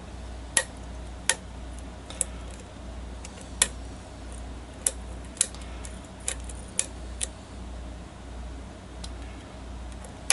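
Steel lock pick working the pin tumblers of a challenge lock: irregular sharp metallic clicks as the pins are lifted and set, over a steady low hum.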